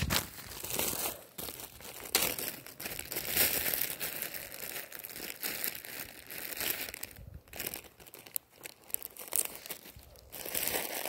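A plastic Ziploc bag crinkling and rustling close to the microphone as BBs are fished out of it to load a BB gun. The crinkling comes in bursts, eases off about seven seconds in, and picks up again near the end.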